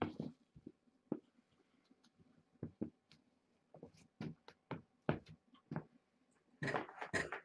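Scattered soft thumps and light scuffs of kittens' paws scampering on a blanket-covered floor, with a short burst of scratchy rustling near the end.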